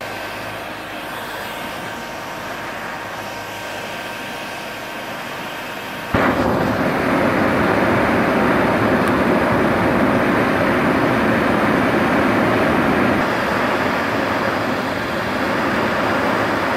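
Heat gun blowing hot air into the glowing, charred hollow of a log to burn out a bowl: a steady rushing that jumps suddenly louder about six seconds in.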